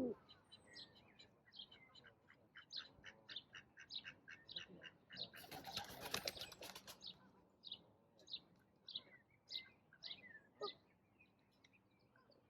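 Small songbirds chirping in short, high, quickly repeated notes, about four a second at first and then more spaced out. About halfway through there is a brief burst of a bird's wings flapping.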